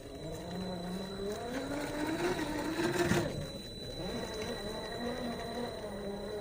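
Brushed 550 electric motor and gear train of an RC rock crawler whining. The pitch climbs over the first three seconds, drops briefly, then rises and falls again with the throttle.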